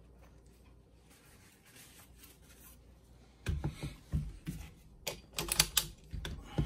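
PTR 9CT rifle, an MP5 clone, being set down on a tabletop and shifted into place. After a quiet first half comes a run of clicks and knocks with a few heavier thuds.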